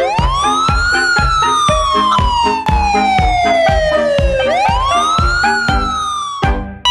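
Siren-like wail that rises quickly and falls slowly, twice, over music with a steady drum beat.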